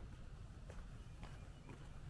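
Footsteps of a hiker walking on a trail: soft, light steps about every half second over a low rumble.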